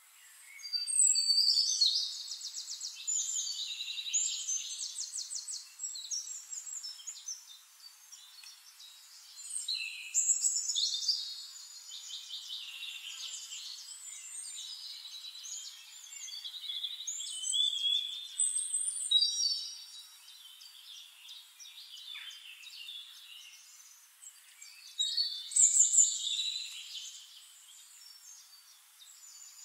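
Songbirds singing: phrases of high chirps and fast trills a few seconds long, with quieter gaps between. The loudest phrases come about a second in, around a third of the way through, and near the end.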